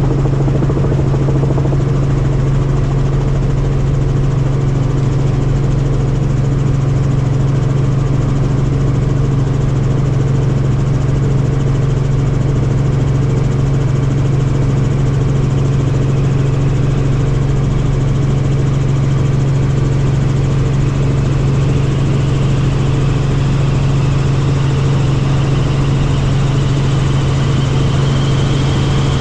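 Helicopter in flight heard from inside the cabin: a loud, steady drone of engine and rotors with a strong low hum. A faint, thin whine slowly rises over the last several seconds.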